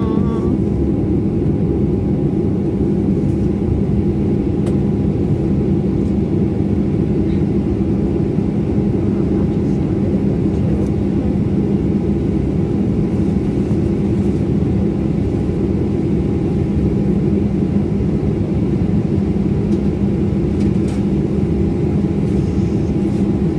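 Steady airliner cabin noise inside a Boeing 737 MAX 9 on the ground: a deep, even hum and rush of air with a faint steady whine above it.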